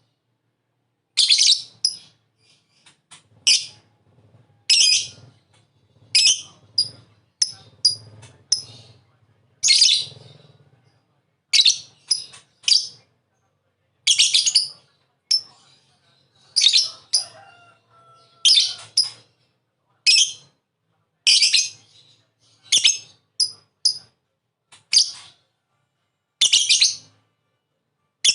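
Lovebird 'ngekek' calling: short, loud, shrill chattering bursts repeated about every second and a half, with softer chirps in between.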